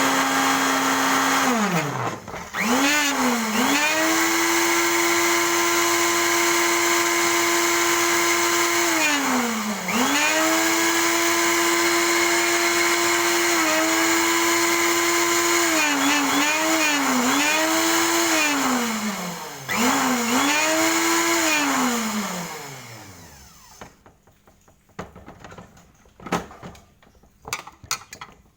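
Electric power tool motor running at high speed with a steady whine, its pitch dropping and recovering several times, then winding down to a stop near the end, followed by a few faint clicks.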